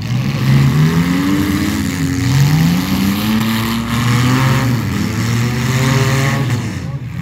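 Several demolition-derby car engines revving up and down at once, their pitch rising and falling as the cars drive about the arena.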